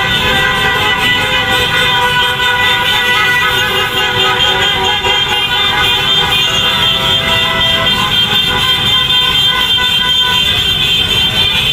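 A long convoy of motor scooters and motorcycles passing, engines running, under a steady din of many horns sounding at once.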